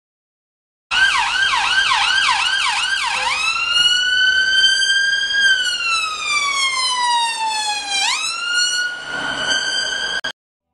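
Emergency vehicle siren, starting about a second in with a fast yelp of about three rising sweeps a second, then switching to a slow wail that rises, falls and rises again. It cuts off suddenly near the end.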